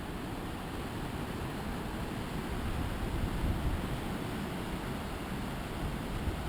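Wind blowing through pine and spruce treetops: a steady, rushing noise with a low rumble, gusting a little stronger around the middle.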